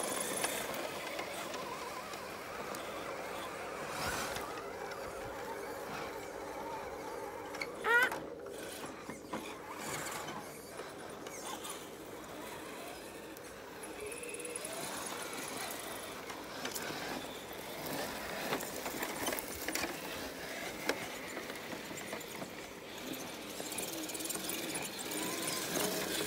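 Quiet whirring of a radio-controlled scale crawler's small electric motor and gear train as it drives over rough ground, with one brief, louder rev that rises in pitch about a third of the way in.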